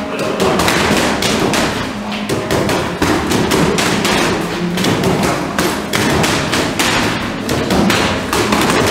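Boxing gloves smacking focus mitts, many sharp hits in quick, irregular combinations from several pairs training at once.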